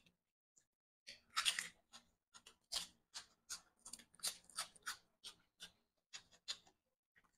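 Crisp, wet crunching of a person chewing raw lettuce and cucumber, about two to three crunches a second, starting about a second in and stopping shortly before the end.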